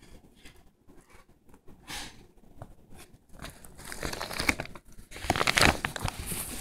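A plastic sheet crinkling and rustling loudly, full of sharp crackles, starting about three and a half seconds in as the camera is shifted and brushes against it.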